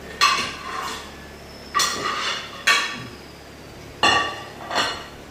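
Dinner plates being set down on a table and knocking together: six sharp ringing clinks, coming in three pairs.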